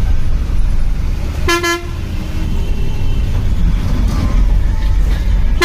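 Bus engine and road rumble heard from inside the driver's cabin, with a short horn toot about one and a half seconds in and another starting at the very end.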